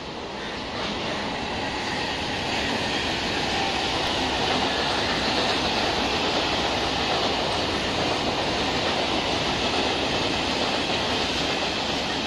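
Suburban electric local train running past on the tracks, a steady rush of wheel-on-rail noise that builds over the first couple of seconds and then holds.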